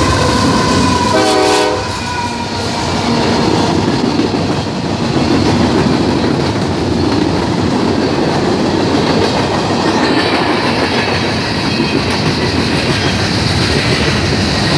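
CSX freight train passing close by at speed: the diesel locomotives go by with a falling tone and a brief chord of tones about a second in, then the freight cars roll past with a steady rumble and wheels clattering over the rails.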